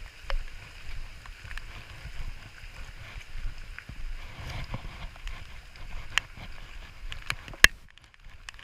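Wind buffeting the microphone in uneven low gusts, with a few sharp clicks near the end.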